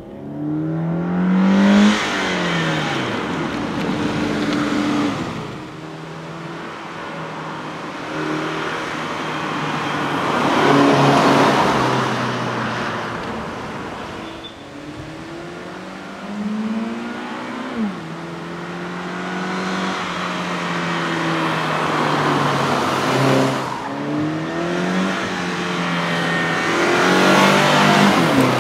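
2013 Subaru BRZ's 2.0-litre flat-four engine, heard from the roadside as the car drives past several times. Its pitch climbs as it accelerates and drops as it goes by, with the loudest passes about 2, 11 and 28 seconds in.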